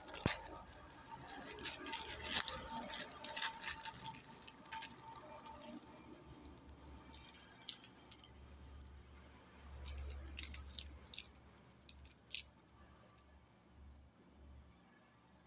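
Crinkling and rustling of a Kinder Joy egg's wrapper and plastic capsule opened by hand, dense for the first few seconds, then scattered light clicks of small plastic toy-car parts handled in the palm.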